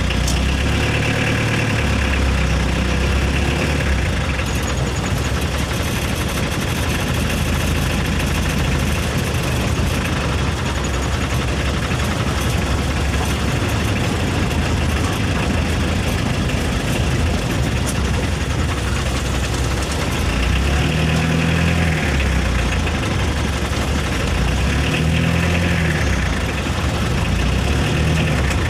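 A steady engine-like rumble under a constant hiss, with a few short rising-and-falling hums in the last third.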